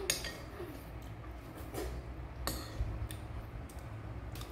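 A metal spoon clinks and scrapes against a ceramic bowl a few times during a meal, with short light clicks spaced a second or more apart, over a low steady hum.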